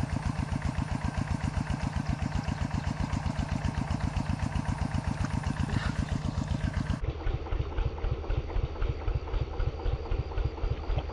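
Small engine running steadily with a fast, even chugging beat. About seven seconds in, the sound becomes duller.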